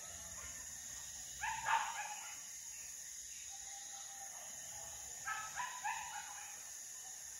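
Hunting dogs barking in two short bouts of several quick barks, the first about a second and a half in and the second about five seconds in, over a steady high hiss.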